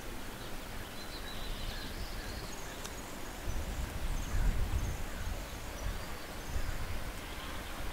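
Outdoor ambience: wind buffeting the microphone in gusts, heaviest a little past the middle, with faint high bird chirps and one small click a little before the middle.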